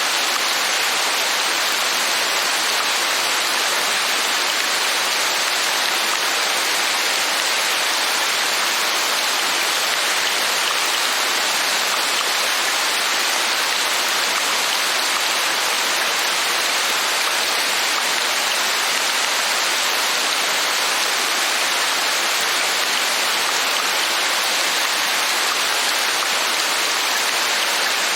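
Steady rain falling, an even, unbroken hiss at constant level.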